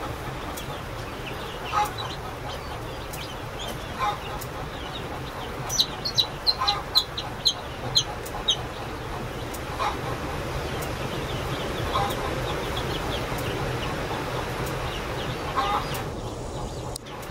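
Newly hatched chicks peeping: a quick run of about eight high, short cheeps about six seconds in, and softer, lower calls every couple of seconds, over a steady low hum.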